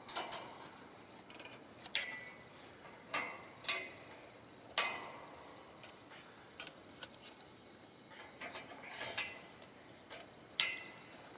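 Steel coil springs of a trampoline being hooked onto the frame with a spring-pulling tool: irregular sharp metal clicks and clinks, a few of them ringing briefly.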